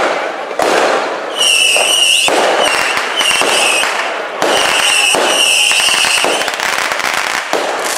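Fireworks going off overhead: a dense string of sharp cracks and pops. High whistles sound several times through the middle.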